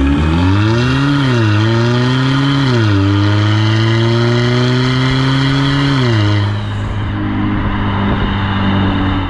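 Modified exhaust of a Volkswagen Tiguan 2.0 TDI four-cylinder diesel with DSG gearbox, accelerating. The engine note rises and drops sharply twice as the gearbox upshifts, about one and a half and three seconds in, then climbs slowly. About six seconds in it drops again and runs quieter at a steady pitch.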